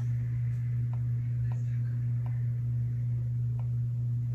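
Steady low electrical hum, with about five faint light clicks a second or so apart from the computer's input as letters are drawn on screen.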